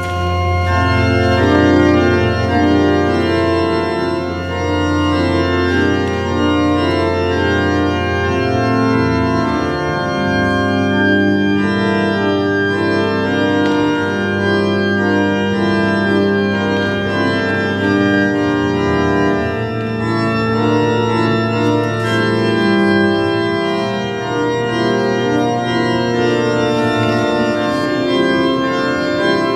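Church organ playing loud, sustained full chords over deep bass notes. It starts suddenly with the first chord, and the chords change every second or so.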